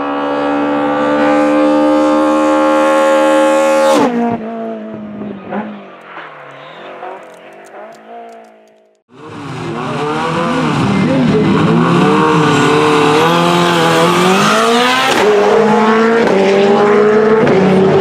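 Race car engines at high revs in edited clips: first a held, slowly rising engine note for about four seconds that cuts off abruptly, then after a short break an engine revved up and down over and over by a car held at the start line.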